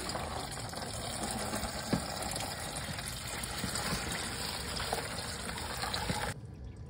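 Hot engine oil draining from the Range Rover's sump in a steady pouring stream, which cuts off abruptly near the end.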